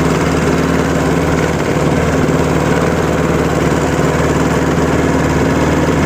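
Engine of the vehicle carrying the group, running steadily at an even speed with a low, constant hum.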